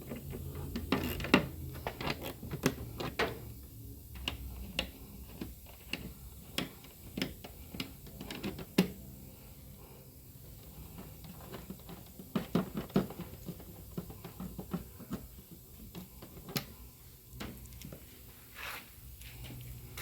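Irregular clicks, taps and light metal clanks of hand tools and small parts being handled while fasteners are taken out of a car's firewall plate, over a low steady hum.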